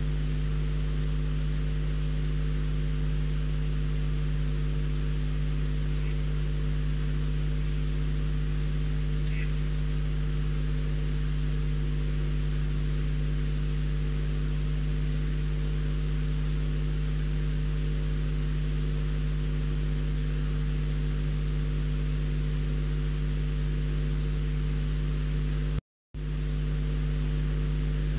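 Steady electrical mains hum with hiss, picked up by the nest-box webcam's audio, unchanging throughout. Two faint short high sounds come about six and nine seconds in, and the sound cuts out completely for a moment near the end.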